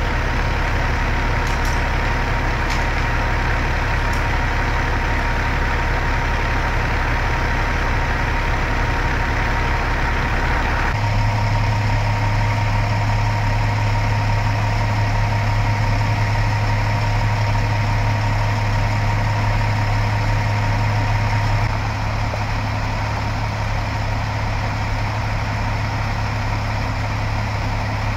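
Fire engines running at idle: a steady, heavy engine hum with a constant thin whine over it. The sound changes abruptly about a third of the way in and again past two-thirds.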